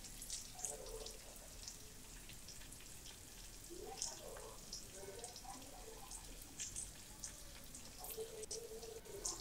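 Chopped vegetables frying in oil in a pan: a faint sizzle with scattered small crackles and pops.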